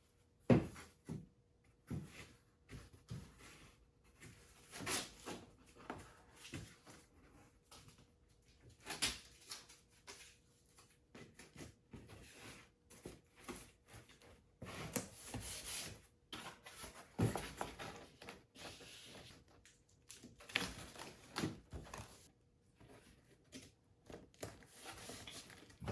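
Scattered knocks and clunks of objects being handled and set down, with short bursts of scraping or rubbing, the longest about fifteen seconds in.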